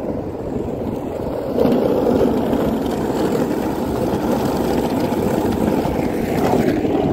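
Electric skateboard with a 350-watt rear hub motor rolling fast on asphalt: a steady rumble of the polyurethane wheels on the road surface, getting a little louder about one and a half seconds in.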